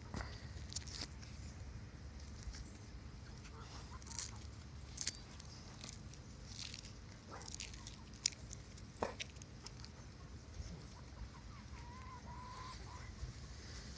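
Poultry foraging in a yard, Muscovy ducks and chickens: faint rustling and scattered soft clicks over a steady low rumble, with one short bird call about twelve seconds in.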